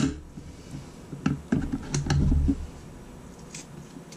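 Kitchen scissors set down on a wooden chopping board with a sharp clack, then dull knocks of a raw quail being handled on the board and a few crisp scattered clicks as the scissors are picked up and snip along the bird's backbone.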